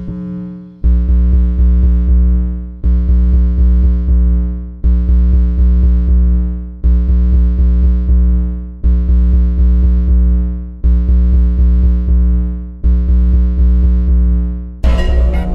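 Electronic music: a loud sustained chord with deep bass, struck about every two seconds and fading away each time, seven times over. Near the end a busier, brighter passage comes in.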